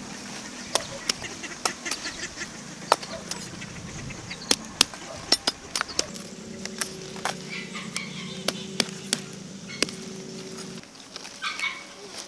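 Farm geese honking, with many sharp clicks and knocks scattered throughout, which are the loudest sounds.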